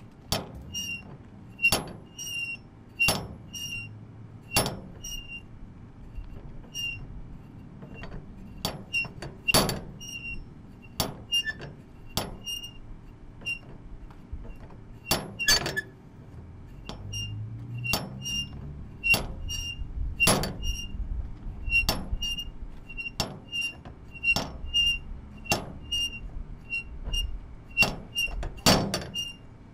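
Horizontal mini-blinds clicking and clattering as they are repeatedly snapped open and shut, a sharp click every second or so with fainter ticks between. A low rumble sits underneath in the second half.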